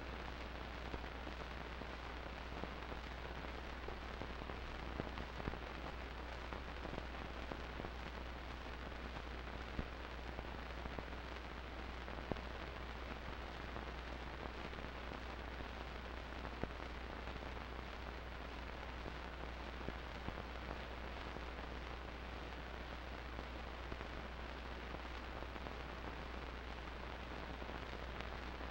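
Steady hiss over a low hum, with scattered faint clicks and crackles and no sound of the scene itself: the noise floor of a transfer of silent home-movie film.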